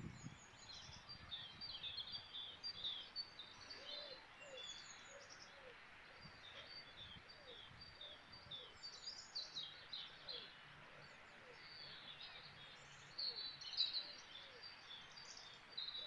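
Several songbirds singing and chirping at once, a faint cacophony of high trills and chirps, over a steady background hiss.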